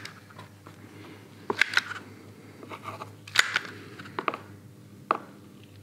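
A small spatula dabbing and scraping two-component adhesive into a fleece patch on the back of a plastic bumper: a string of short, sharp scrapes and clicks, about eight in all, over a faint low hum.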